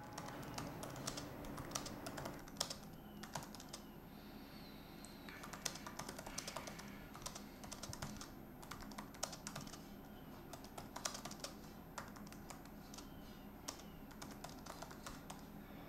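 Typing on a laptop keyboard: irregular key clicks throughout, over a low steady room hum.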